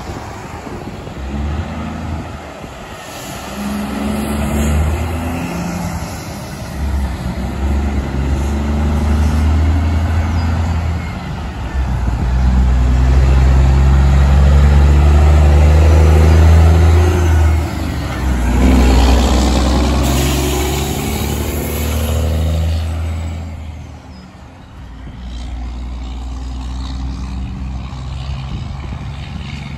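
Diesel semi-truck engines pulling through the gears and passing by. The loudest is a Peterbilt 389 tractor-trailer, with a deep steady engine drone for several seconds midway, followed by a rising and fading rush of passing traffic.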